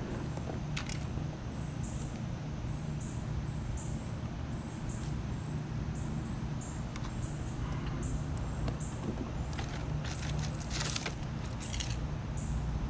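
Electric mobility scooter riding along: a steady low hum from its drive motor, with light rattling and a few clicks, a cluster of them about ten seconds in.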